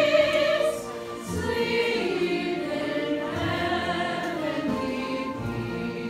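Choral music: a choir singing long held notes with vibrato, over a low beat that falls about every two seconds.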